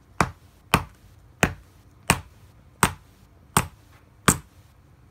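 A yellow toy hammer striking green plastic scissors on a rug: seven sharp blows, evenly paced at a bit more than one a second. The scissors are not breaking.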